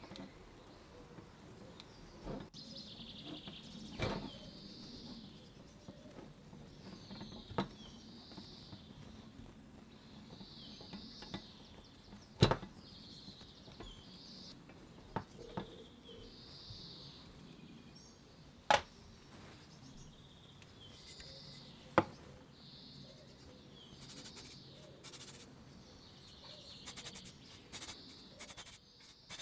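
Faint handling noise from fitting a wooden paddle and handle onto a butter churn's metal shaft: a few sharp clicks and knocks several seconds apart, with faint high squeaks repeating every second or two.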